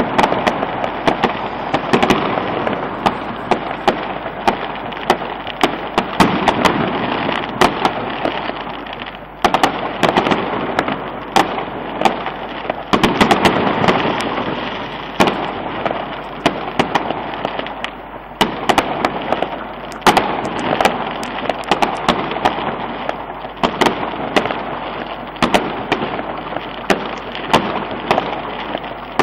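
Aerial fireworks bursting in a continuous dense crackle, punctuated by frequent sharp bangs. The crackle thins briefly about 9 seconds in and again about 18 seconds in.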